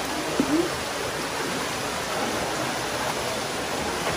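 Running water of a wadi stream and its falls: a steady, even rush.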